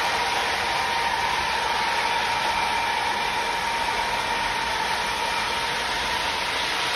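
Model trains running on a layout: a steady rolling whir of wheels on track and motors, with a constant thin hum over it.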